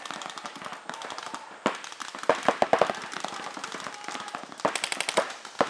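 Paintball markers firing in rapid strings of sharp pops, several guns going at once, with the loudest, densest volleys about two seconds in and again near the end.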